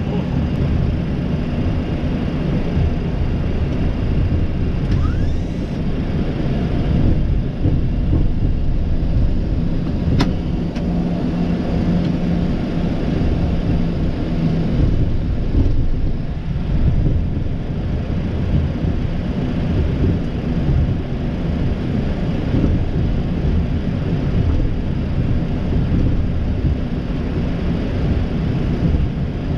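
Steady low rumble of taxiing heard inside a Boeing 737's flight deck after landing, with a single sharp click about ten seconds in.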